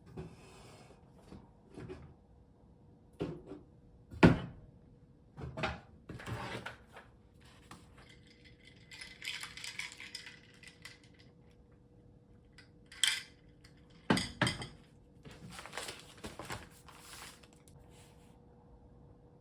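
Scattered clinks and knocks of dishes and utensils being handled, a few separate strikes with the sharpest about four seconds in and two more around thirteen and fourteen seconds, over a faint steady tone.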